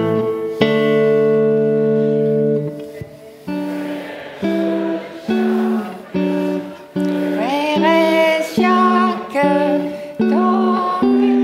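A guitar plays chords: one long held chord, then short, clipped chords in a steady pulse of a little more than one a second. Voices singing along join in partway through.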